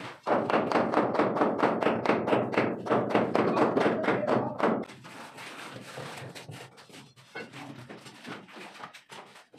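Rapid hand-hammer blows, about six a second, struck at the foot of a wooden door frame, stopping after about four and a half seconds; a few lighter knocks follow.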